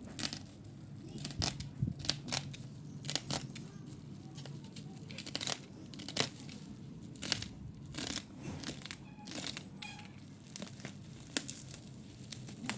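Package wrapping being torn open by hand: a run of short rips and crinkles, a dozen or more sharp tears spread across the few seconds.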